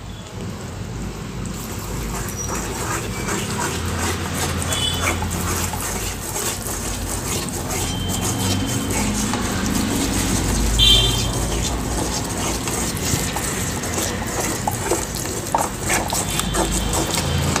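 Boiling jaggery syrup sizzling and crackling as a ghee and gram-flour batter is poured in and stirred with a wooden spatula against the pot, with a few brief high-pitched squeaks now and then.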